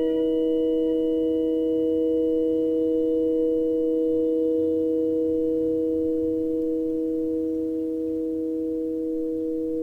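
Steady electronic tones: several pure pitches held together as one unchanging chord, with faint higher tones above it.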